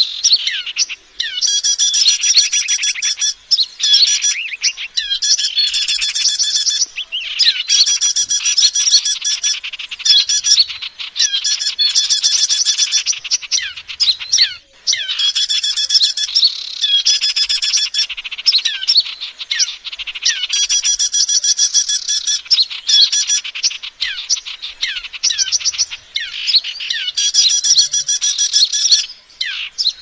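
Recorded lure call of small songbirds: dense, rapid, high-pitched chirping and trilling that goes on continuously with only brief pauses, a track played to draw small birds in.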